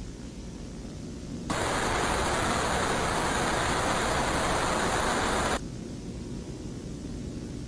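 Loud hiss of static that cuts in abruptly and stops just as abruptly about four seconds later, over a steady low rumble.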